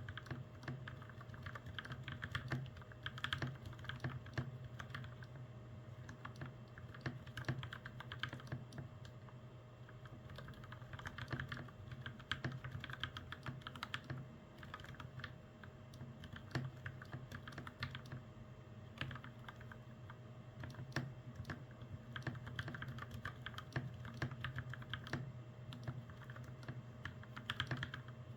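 Mechanical keyboard being typed on in quick, continuous runs of keystrokes, with brief lulls between runs.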